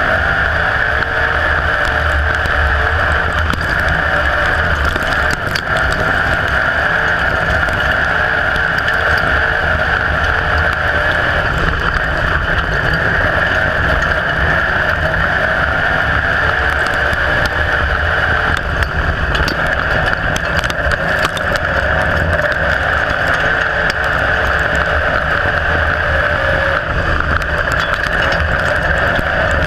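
IMCA Modified dirt-track race car's V8 engine running hard at racing speed, heard from inside the cockpit as a loud, steady drone, with a few sharp clicks scattered through.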